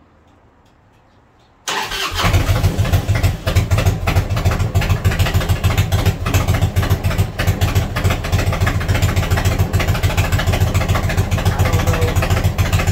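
V-twin motorcycle engine with new 33-inch fishtail exhaust pipes starting up a little under two seconds in, then idling steadily with a loud, low, even pulse.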